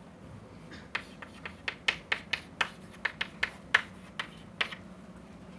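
Chalk tapping and clicking on a blackboard as an equation is written: an irregular run of sharp taps, starting about a second in.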